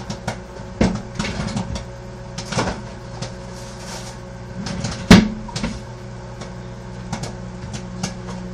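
Microwave oven running with a steady hum, under scattered clicks and knocks of kitchen things being handled, with one loud knock about five seconds in.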